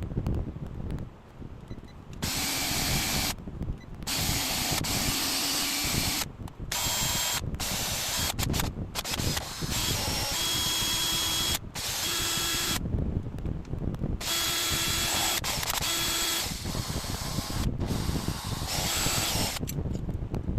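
Electric drill run in about nine short bursts, each one to three seconds long, with a steady whine while running and brief stops between bursts.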